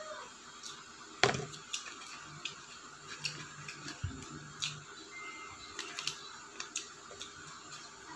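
Close-up eating sounds: chewing with wet mouth clicks and smacks, and paper crinkling as a paper sleeve and cardboard food box are handled. One sharper click about a second in.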